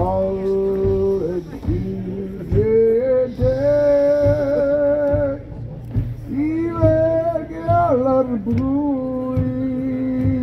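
Several voices singing or chanting long held notes together at different pitches, sliding up into some notes, with short pauses between phrases.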